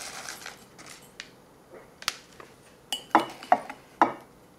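Metal spoon clinking and scraping against a ceramic mug of dry powdered soup mix. A soft rustle at the start gives way to a few light clicks, then three sharper, ringing clinks near the end.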